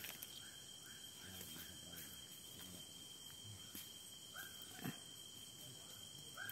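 Night forest ambience: a steady high-pitched insect drone, with an animal's short upward chirping calls, a quick run of them at first and then a few louder single chirps. A light knock of the machete against the wooden log sounds once about five seconds in.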